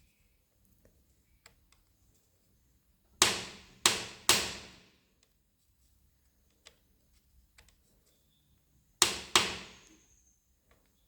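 Five sharp knocks, each ringing away within about a second: three a little over three seconds in, two about nine seconds in, with faint small clicks between them.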